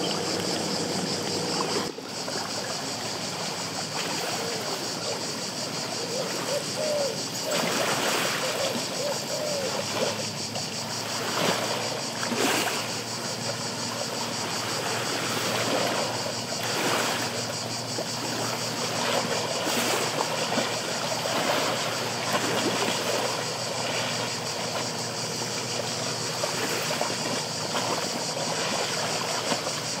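Small lake waves lapping and splashing against shoreline rocks, with irregular splashes over a steady high-pitched drone.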